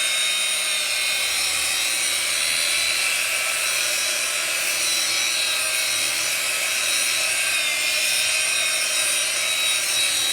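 Power sander grinding concrete, running steadily with a high-pitched whine.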